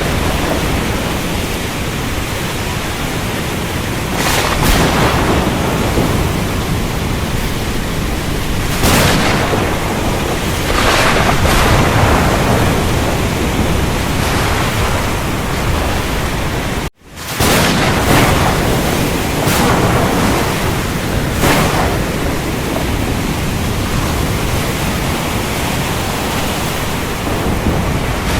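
Thunderstorm: heavy rain pouring steadily, with rolling thunder swelling up several times. About halfway through the sound cuts out for an instant, then returns.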